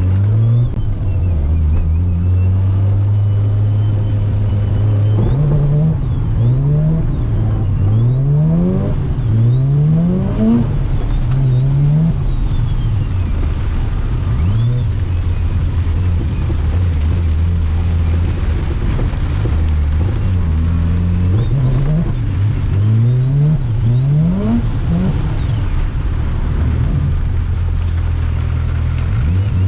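Mazda RX-7 FC's turbocharged 13B rotary engine under hard driving: steady running in stretches, broken by repeated rising revs about once a second.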